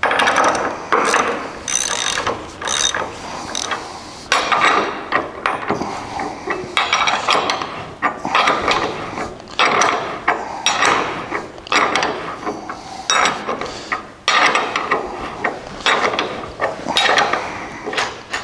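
Hand ratchet wrench clicking in repeated short strokes, roughly one every second with brief pauses, as bolts joining steel truck frame rails are snugged up.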